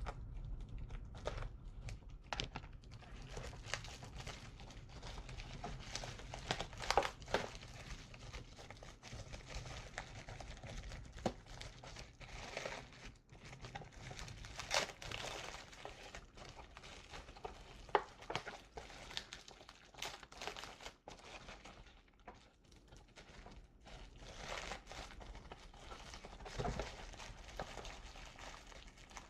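Packaging being handled and unwrapped: irregular crinkling and rustling with scattered short taps and clicks.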